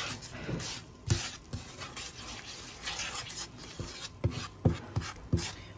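Wooden spatula stirring and scraping melting butter around a non-stick frying pan, the butter sizzling, with several sharp taps of the spatula against the pan.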